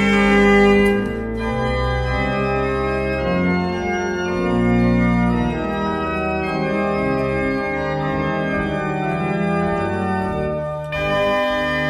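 Organ being played, sustained full chords that change every second or so, with short breaks between phrases about a second in and near the end.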